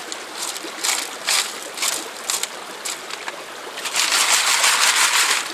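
Creek water running, with repeated short splashes and a louder stretch of heavy splashing about four seconds in.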